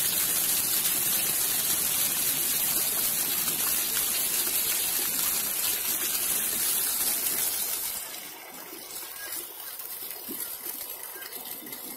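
Water jets of a ground-level splash fountain gushing up through metal grates and splashing onto the wet paving, a steady rushing that drops to a quieter level about eight seconds in.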